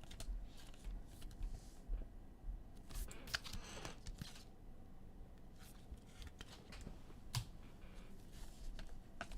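Trading cards being handled at a table: faint slides, flicks and light clicks of card stock, with a short rustle about three and a half seconds in.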